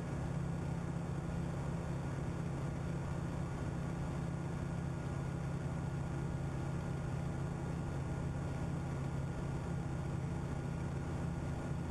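Steady, unchanging low drone of aircraft engines in flight.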